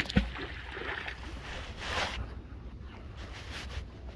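Phone microphone handling noise: a sharp bump near the start, then cloth rubbing over the microphone with a brief rushing swell about two seconds in.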